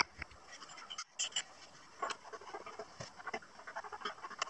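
Wooden parts of a pine saw-sharpening stand being handled and fitted together: a sharp knock at the start, then a run of small irregular knocks, creaks and scrapes from about two seconds in.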